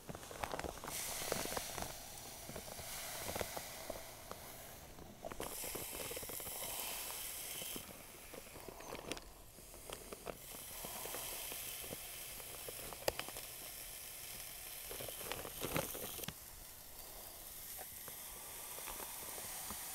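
Dry sand pouring from a bag through a plastic funnel into the hollow plastic pool step: a steady hiss that grows and eases as the pour changes, with a few small knocks.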